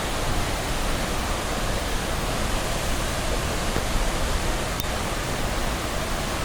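Waterfall heard up close: a steady, even rushing of falling water.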